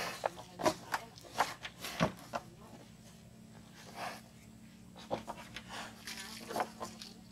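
Swamp buffalo feeding on fresh greens: irregular crunching and tearing clicks over a low steady hum.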